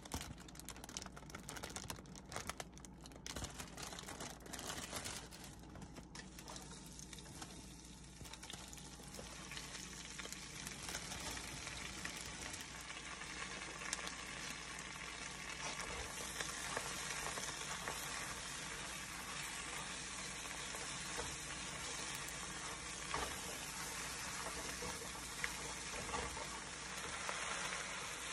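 Butter and fresh baby spinach sizzling in a frying pan. Sharp crackles over the first several seconds settle into a steadier hiss that slowly gets louder as the spinach cooks down in the fat.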